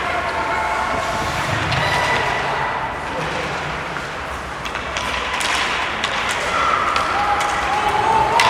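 Ice hockey game in an arena: a steady wash of crowd and rink noise with scattered voices, and sharp clacks of sticks and puck from about five seconds in, along with thuds.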